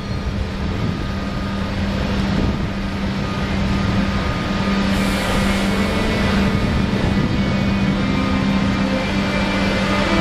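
ÖBB Class 1116 Taurus (Siemens ES64U2) electric locomotive moving off under power. Its traction converters hold a steady low hum with higher whining tones, and from about halfway these begin to climb in steps: the start of the Taurus's well-known 'singing' scale as it gathers speed. The sound grows gradually louder.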